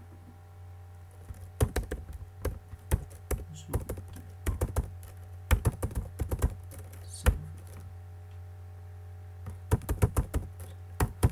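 Computer keyboard typing in quick irregular runs, with a pause of about two seconds in the middle, over a steady low hum.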